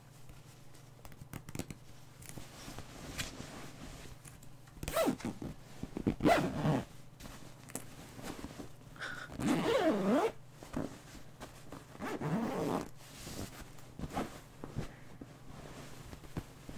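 A clear plastic bag crinkling and rustling as fabric is pulled out of it, in uneven bouts with short pauses.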